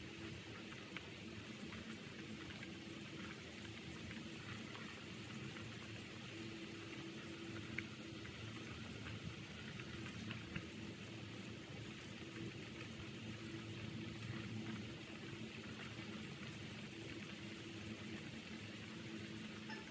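A pot of pork bone and vegetable soup boiling steadily: an even bubbling hiss with a few small pops, over a faint steady low hum.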